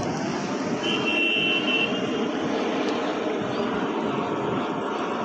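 Steady, loud machine roar with no distinct strikes, with a brief high tone about a second in.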